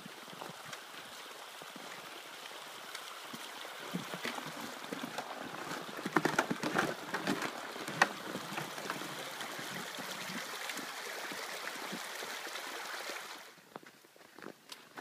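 Shallow stream running steadily under a wooden footbridge, with a cluster of knocks from footsteps on the bridge boards around the middle. The water sound cuts off suddenly near the end, leaving faint footsteps in snow.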